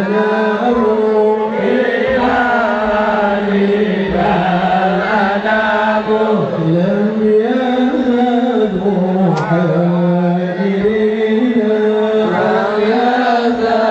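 Slow, ornamented devotional chanting in the style of an Islamic sholawat, with a steady held low note beneath the melody.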